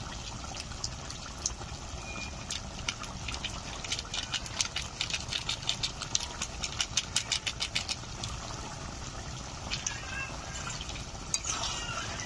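Thick, well-reduced chicken curry bubbling in a wide metal pan, thick bubbles popping in a quick irregular run over a steady low rumble. Near the end a spatula stirs and scrapes through the curry.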